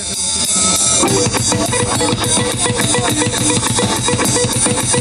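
Live rock band music: sustained chords open, and a drum kit enters about a second in with a fast, steady beat under a constant cymbal wash.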